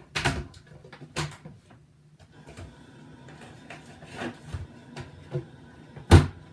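Household items being handled on a tabletop: a few sharp knocks with light rubbing and rustling between them, the loudest knock near the end.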